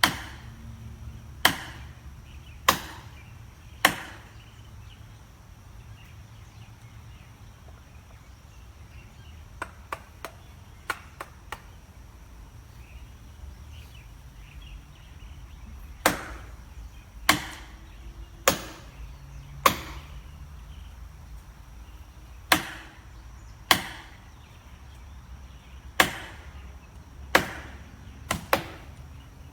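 Repeated sharp chopping strikes, about one every 1.2 seconds, in two runs with a quieter gap of a few light taps between them. A faint steady high tone sits underneath.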